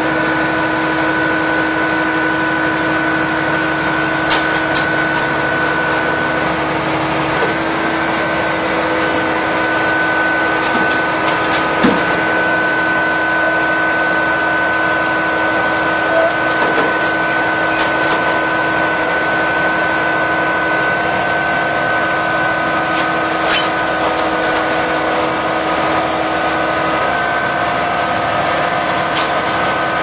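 A machine running steadily: a constant hum with a steady whine held at a fixed pitch, and a few faint clicks.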